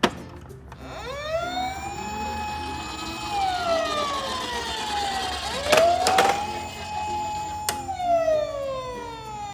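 Emergency-vehicle siren wailing: the pitch rises, holds, then slides down, twice over. A few sharp clicks or knocks come through, near the start and around the middle.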